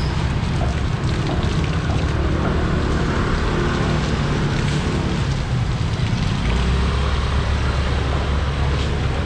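Steady outdoor street noise with a low rumble of traffic and vehicle engines; the rumble grows stronger about two-thirds of the way through.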